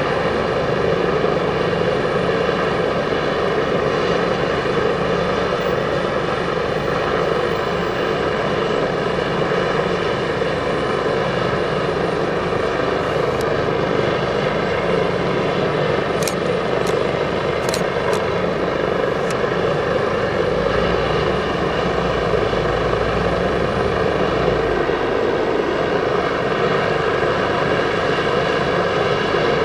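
Medevac helicopter running on the ground with its rotors turning before lift-off: a steady turbine whine over even rotor noise.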